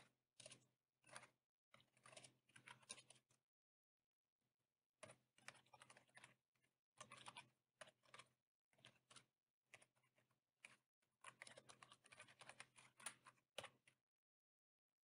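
Faint computer keyboard typing in quick flurries of key clicks, with a short pause about a third of the way in and again near the end.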